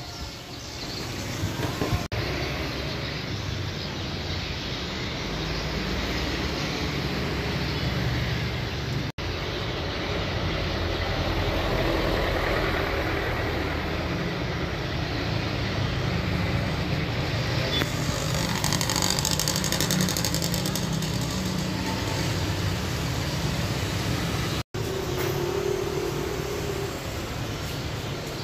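Steady road traffic noise with a low engine rumble, cutting out for an instant three times.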